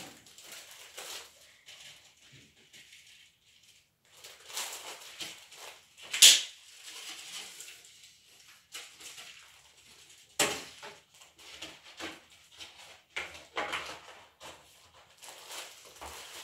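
Someone rummaging and handling objects: rustling and clattering with scattered sharp knocks, the loudest about six seconds in and another about ten seconds in.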